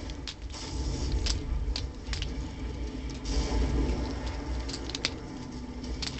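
Metal clicks and clacks of a butterfly knife (balisong) being handled and flipped, its handles snapping against each other and the blade at irregular moments, over a low steady rumble.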